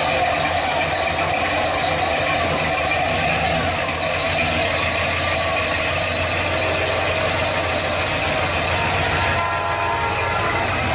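Hot-rodded engine of a lowered, hood-scooped late-1960s Chevrolet pickup idling steadily as the truck rolls slowly past.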